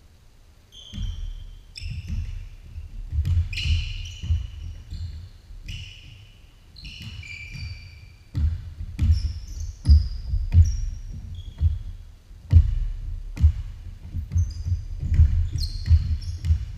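Basketball bouncing on a hardwood gym floor in a run of sharp thuds, starting about a second in, with players' sneakers squeaking in short high chirps between the bounces.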